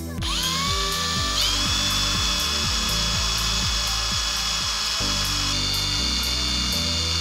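Electric drill with a small twist bit boring out a pit-bike oil pump's 1 mm oil passage to enlarge it. The drill spins up just after the start, its whine rising in pitch for about a second, then runs steadily while cutting.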